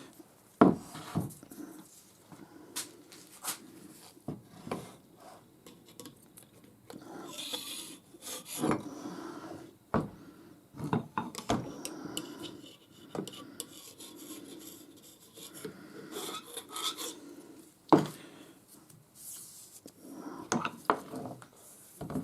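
Metal lathe tool-slide parts being handled and fitted together: scattered clinks and knocks of steel on steel, with stretches of metal sliding and rubbing along the ways.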